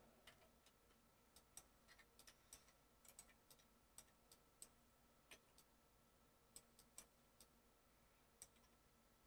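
Faint, irregular clicking of a computer mouse and keyboard keys, with a few clicks a second at the busiest, as keyboard shortcuts are pressed.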